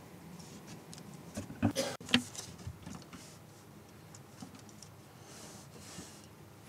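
Quiet hall room tone with a few faint clicks and knocks about a second and a half to two seconds in, and a sharp click at the very end.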